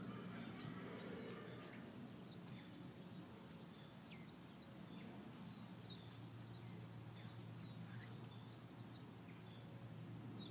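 Faint outdoor ambience: small birds chirping in short, scattered calls over a low, steady background rumble.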